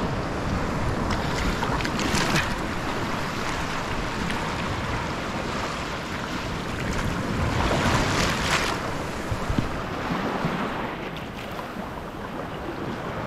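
Small sea waves washing up the sand at the water's edge, with wind buffeting the microphone; two louder rushes of surf come about two seconds in and again around eight seconds.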